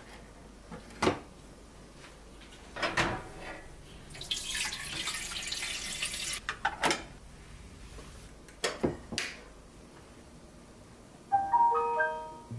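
Kitchen handling sounds: a few separate clinks and knocks of dishware, and about two seconds of running water in the middle. Soft music with plucked notes starts near the end.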